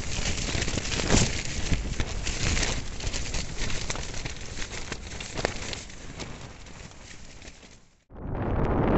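Nylon tent fabric flapping and snapping in strong gusting wind, heard from inside the tent, the flapping easing toward the end. About eight seconds in it cuts off sharply, and a steady wind rumble buffeting the microphone takes over.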